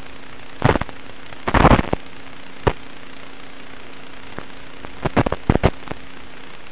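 Steady static hiss with a faint low hum, broken by sharp crackling bursts: a few in the first three seconds and a cluster about five seconds in. This is the audio track of an analog FPV video receiver's recording.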